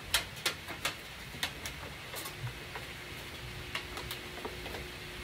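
Thin aluminum cake-pan sheet being bent and pressed by hand, giving irregular sharp clicks and crinkles.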